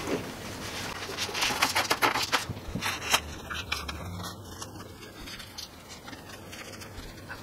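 Handling noise of low-voltage wire being fed through a cabinet and tools moved on a countertop: a quick run of small clicks and knocks for the first few seconds, then only scattered light taps.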